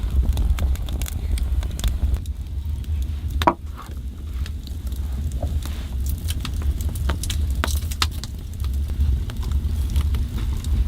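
Wood fire crackling, with scattered sharp pops over a low steady rumble. One louder knock comes about three and a half seconds in.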